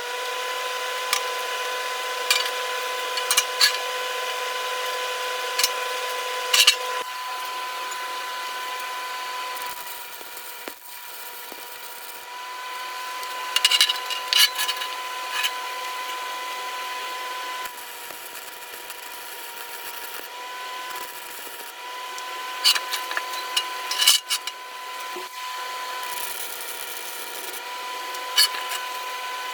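Electric power tool running with a steady whine while working steel, with a rough scraping layer and a few sharp cracks; its level drops briefly about a third of the way in and again past halfway.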